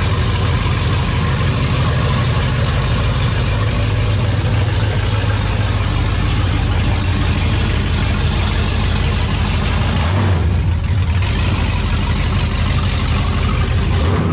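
The 80 series Land Cruiser's swapped-in LS V8 running steadily at idle, a loud, deep, even engine note.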